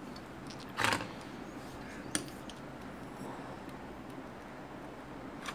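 Light handling noises of a circuit board and soldering tools on a tray: a short scrape about a second in, a sharp click about two seconds in, and a few faint ticks over a steady low hiss.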